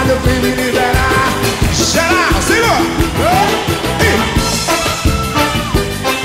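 Brazilian samba band song playing, with a busy percussion beat and vocal lines that slide up and down in pitch.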